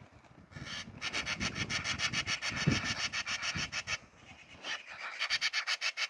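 Eurasian magpies chattering: a harsh, fast rattle of about ten notes a second, held for about three seconds, then a shorter second rattle near the end. A low rumble lies under the first rattle.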